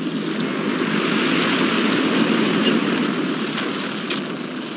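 Single-engine float plane's propeller engine passing low overhead, growing louder to a peak about two seconds in and then fading.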